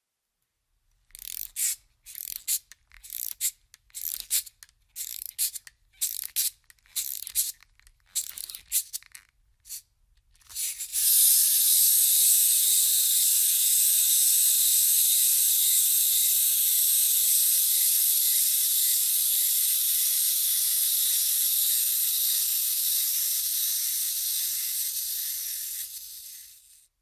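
Wind-up toy: for about ten seconds the clockwork key is turned in short ratcheting bursts, then the spring is let go and the clockwork mechanism runs with a steady, high whirr for about fifteen seconds, tapering off as the spring runs down.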